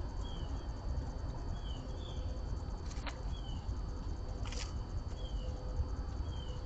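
A small bird repeating a short, falling chirp, six times, over a steady low rumble. Two sharp clicks sound about three and four and a half seconds in.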